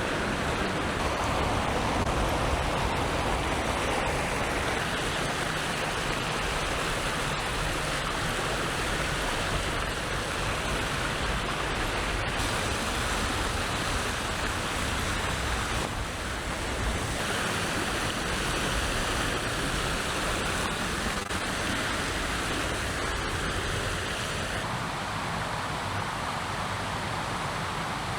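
Steady rushing of a flowing mountain stream, its tone shifting slightly a few times.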